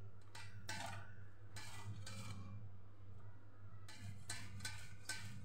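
Boiled potatoes rubbed across a stainless-steel hand grater into a steel bowl: faint rasping strokes, about one or two a second, with a pause of a second and a half midway. A steady low hum runs underneath.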